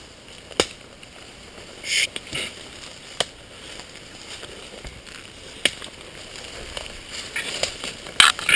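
Footsteps through dense forest undergrowth: a few sharp twig snaps, about a second in, past three seconds and near six seconds, and short bursts of leaves and branches rustling against clothing, loudest near the end.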